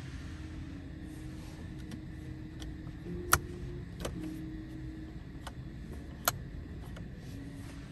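Two sharp clicks about three seconds apart, with a few fainter ticks between them, from controls being pressed and handled in a 2023 Genesis G90's cabin, over a low steady hum.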